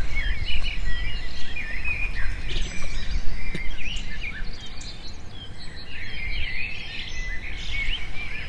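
Birds chirping, many short high calls one after another over a steady low rumble.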